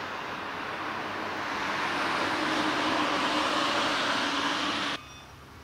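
Passing road traffic: the noise of a vehicle swells as it approaches and grows loudest near the middle, then cuts off abruptly about five seconds in, leaving a much quieter background.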